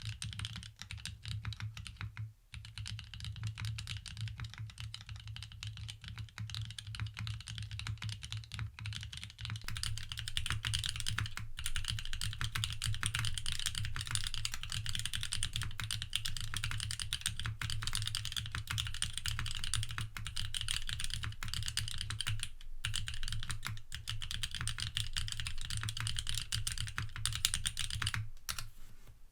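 Fast, continuous typing on a custom mechanical keyboard fitted with Tiger linear switches, an FR4 plate, no foam and PBT keycaps, with a few brief pauses. With these switches the release of each key is louder than the press.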